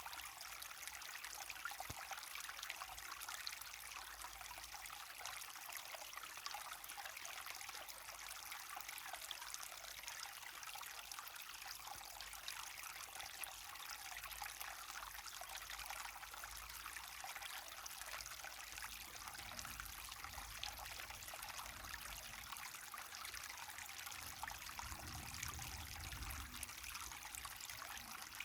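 Small waterfall splashing and trickling steadily, water pouring and running over a drop.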